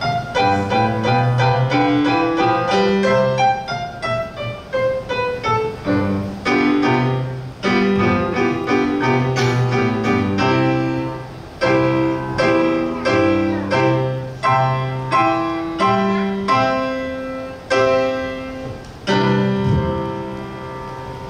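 Solo piano piece played live, a steady run of notes and chords that ends on a final chord ringing out near the end.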